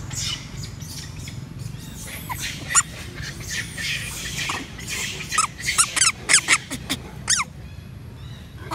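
Young macaque squealing: a string of short, high-pitched squeals, coming thick and fast from about five seconds in.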